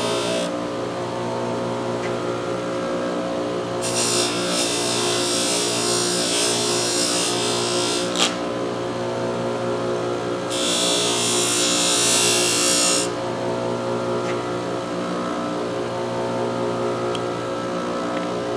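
Motor-driven fiber abrasive wheel spinning steadily, with steel needle-nose pliers pressed against it twice for a hissing grind: once for about four seconds starting about four seconds in, and again for about two and a half seconds near the middle. This is a rough polish taking surface rust off the pliers. A sharp click comes at the end of the first pass.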